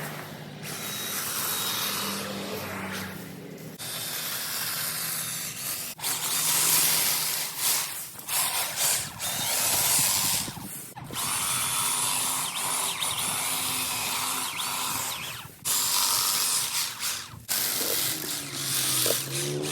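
Stihl extension pole hedge trimmer with freshly sharpened blades running and cutting, in stretches of several seconds broken by brief stops.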